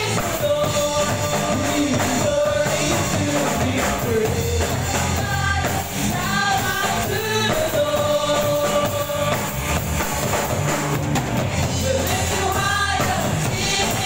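Live contemporary worship band: several singers on microphones with long held notes, over electric guitars and a drum kit, amplified through the hall's loudspeakers.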